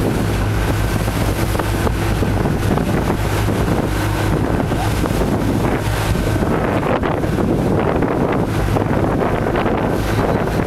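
Excursion boat's engine running steadily under way, a constant low drone, with wind buffeting the microphone and water rushing past the hull.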